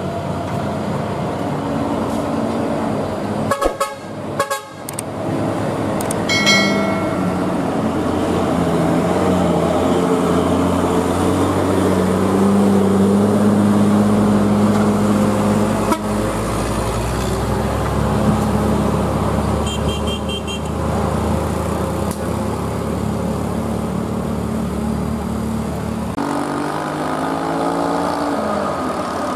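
Heavy diesel engines of a coach bus and a heavy truck running and revving on a steep bend, the pitch rising as they pull away, around twelve seconds in and again near the end. Two short horn toots cut through, about six seconds in and around twenty seconds in.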